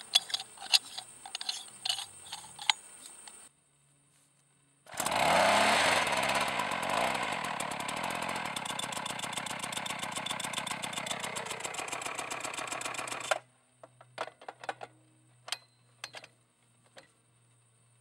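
Metal sampler parts clinking as they are handled, then a petrol percussion hammer's engine starts, rising in pitch, and runs loudly with a fast even pulse for about eight seconds before its pitch drops and the sound cuts off suddenly. A few light knocks of equipment being handled follow.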